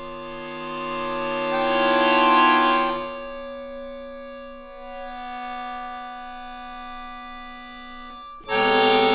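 Solo accordion holding sustained chords. A chord swells and dies away in the first three seconds, quieter held notes follow, and a loud new chord comes in suddenly near the end.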